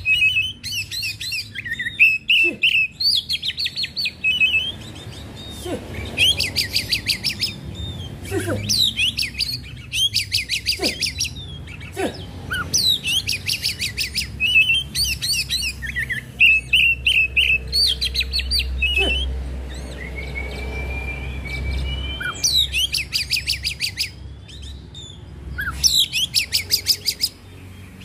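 Oriental magpie-robin singing loudly and without pause: varied whistled and slurred phrases, broken every few seconds by fast rattling runs of rapid repeated notes.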